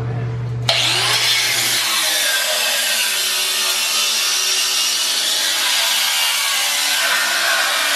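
Angle grinder with a cutting disc spinning up, then, under a second in, biting into the car's steel front-end structure and cutting steadily with a loud, harsh grinding noise.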